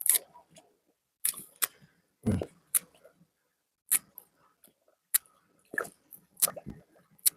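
Grass carp feeding at the water surface: irregular short slurping smacks and clicks as the fish take food, one with a heavier low splash about two seconds in.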